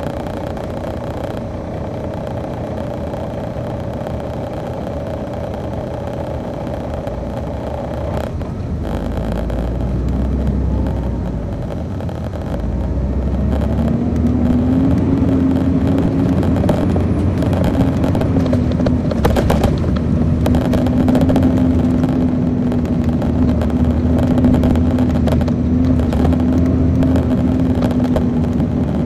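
A 2002 MCI D4000 coach's Detroit Diesel Series 60 engine running, heard from on board. About halfway through it grows louder and a steady drone sets in and holds, with a few brief rattles.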